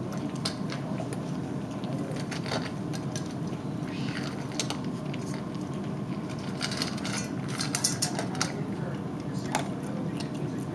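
Large dog eating dry kibble from a stainless steel bowl: irregular crunches and sharp clinks against the metal bowl, busiest in the middle, over a steady low hum.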